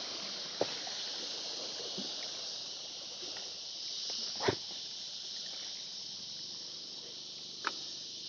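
A steady high hiss of outdoor ambience, broken by three brief sharp knocks: one about half a second in, a louder one around the middle, and one near the end.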